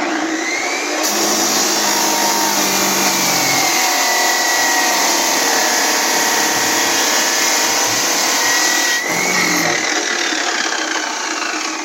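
A power tool running loudly and steadily, cutting in abruptly, with a faint wavering whine over a dense noise and a brief dip about nine seconds in.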